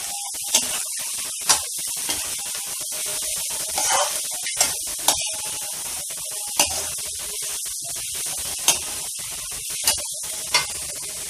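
Chopped vegetables sizzling in hot oil in a metal kadhai as they are stir-fried. A metal slotted spatula clinks and scrapes against the pan about ten times, at uneven intervals.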